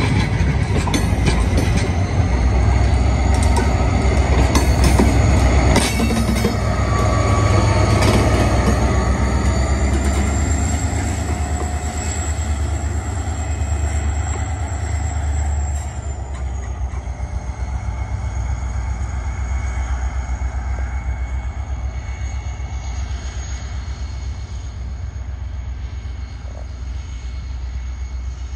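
Diesel-hauled passenger train pulling out. The locomotive's engine rumbles low under load, the wheels click over the rail joints, and the flanges squeal in high tones. The sound drops at about the middle and then fades slowly as the train draws away.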